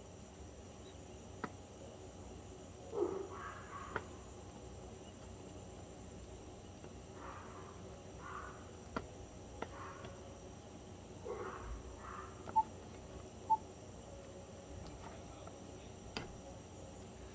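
Quiet background room tone after a ringtone has ended: a steady hiss with a thin high whine, a few faint clicks and two short pips about a second apart.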